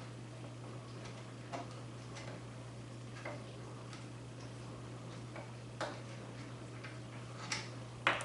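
Faint, irregular clicks and ticks of a screwdriver turning out the screw that holds the buttstock on a Marlin 1895 lever-action rifle.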